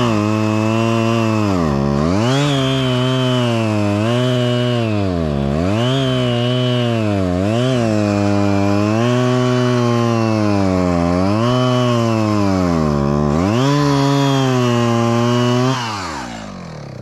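Gas chainsaw at full throttle bucking a log into rounds. The engine pitch sags and recovers again and again as the chain bites into the wood. Near the end the throttle is released and the saw's sound drops away.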